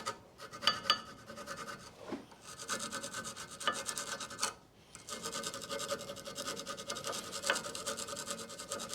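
An old metal file scraping flakes of rust out of a brake caliper carrier's pad seats in quick back-and-forth strokes, with a few sharp clicks of metal on metal and a short break about halfway through.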